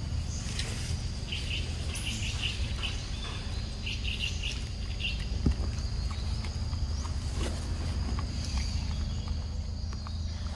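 Forest ambience: a steady high insect drone, with short bursts of chirping in the first half, over a constant low rumble.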